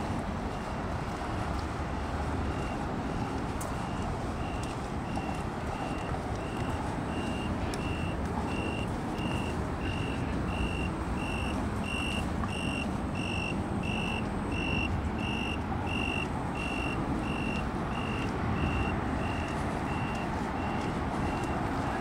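A singing insect chirping in a steady series of short, high, evenly spaced notes, about one and a half a second, louder in the middle, over a steady low city hum.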